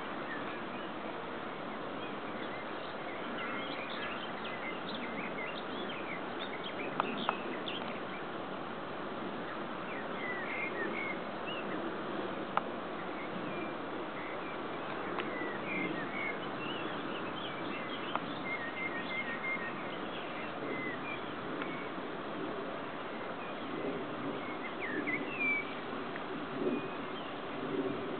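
Small birds chirping and calling in short, scattered high notes over a steady background hiss, with a few sharp clicks about seven and twelve seconds in.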